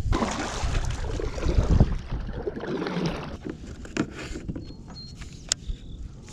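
A kayak's hull scraping down a dirt bank and sliding into the water as it is launched, loudest for the first couple of seconds, then a few light knocks as it floats.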